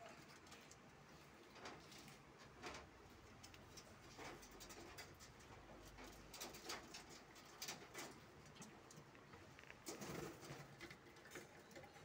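A pet parrot's faint, scattered scratches and clicks as it moves about, with a short soft low call about ten seconds in.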